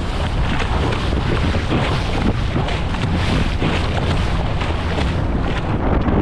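Strong wind buffeting the microphone: a steady, loud rushing noise with heavy low-end rumble and no break.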